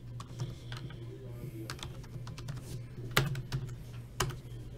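Irregular typing on a computer keyboard: scattered keystrokes, with two louder clicks about three and four seconds in.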